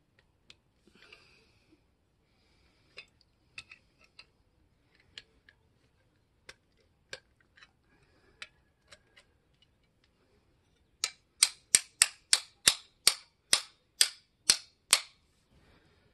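Snap-on hand ratchet clicking as the exhaust clamp bolts are worked: scattered single clicks, then about a dozen loud, quick clicks, roughly three a second, in the last few seconds.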